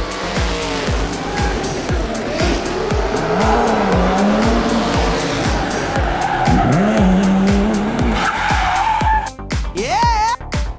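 Race-car sound effects, engines revving up and down with tyre squeals, over background music with a steady beat of about two to three strokes a second. A sharp rising whine comes near the end.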